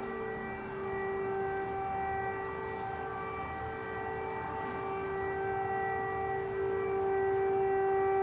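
Air raid warning siren sounding across the city, holding one steady pitch.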